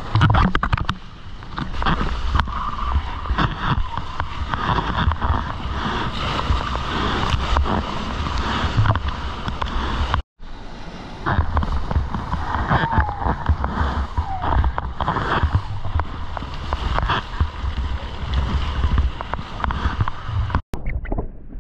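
Seawater rushing and splashing close against the camera as a longboard rides through breaking whitewater, with a low rumble of wind and water buffeting the microphone.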